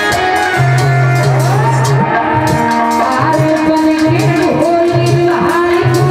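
Live Indian folk song: a woman singing over drums and a steady, rapid jingling percussion beat.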